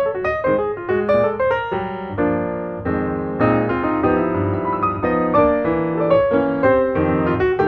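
Background piano music: quick runs of notes, with a few held chords about two to three seconds in.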